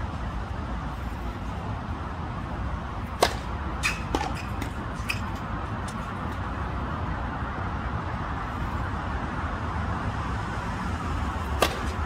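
Tennis racket hitting the ball on a hard court: a sharp pop about three seconds in and another near the end, with a few lighter ticks after the first, over a steady low background rumble.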